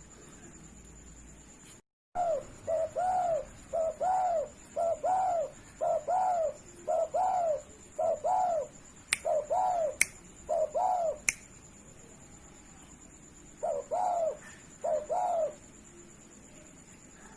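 Spotted dove (derkuku) cooing: a long run of short coos in quick pairs, each note rising and falling. A pause of about two seconds follows, then a few more paired coos. Three sharp clicks sound partway through.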